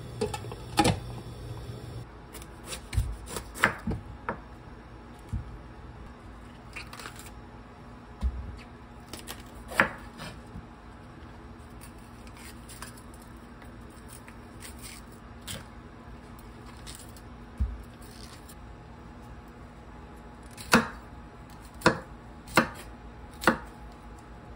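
Kitchen knife cutting bell peppers and broccoli on a wooden cutting board: scattered sharp knocks of the blade hitting the board, with a run of four strokes about a second apart near the end.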